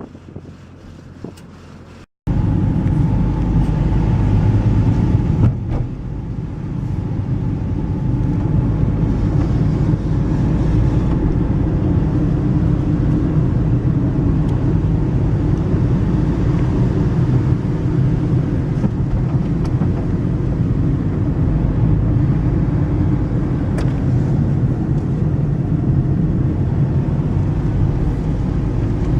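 A car driving: steady engine and road noise, coming in abruptly about two seconds in after a brief quieter stretch.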